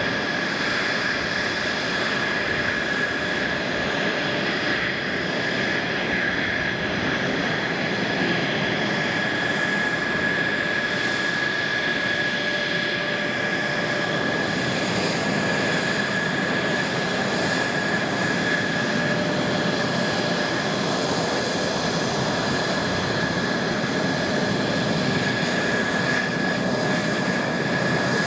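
Mitsubishi F-2 fighters taxiing past, their single F110 turbofan engines giving a steady high whine over a hiss.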